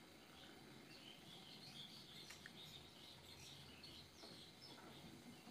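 Near silence: faint background hiss with scattered faint, short high chirps.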